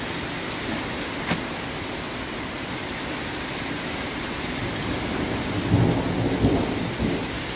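Heavy thunderstorm rain pouring steadily, with a single sharp tap about a second in. A low rumble of thunder swells in over the last couple of seconds.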